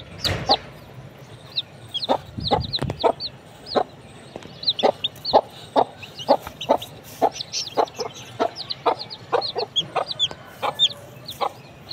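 Baby chicks peeping repeatedly: short, high, falling peeps, several a second, from more than one bird.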